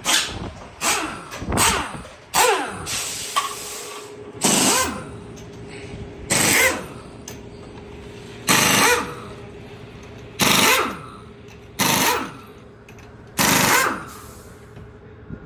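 Pneumatic impact wrench hammering on a pickup truck's wheel lug nuts: a quick run of bursts at first, then six short bursts about two seconds apart, one for each nut.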